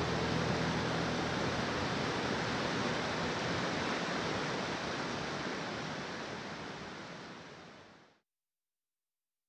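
Rushing creek rapids: a steady roar of white water. It fades out over a couple of seconds and stops about eight seconds in.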